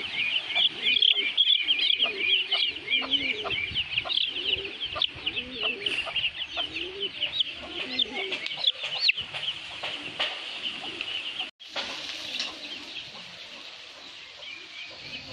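Domestic chicken chick peeping loudly and without pause, a rapid run of short, high, rising cheeps, several a second, typical of a chick held in the hand. Lower clucks sound underneath. The peeping thins out and grows quieter in the last few seconds.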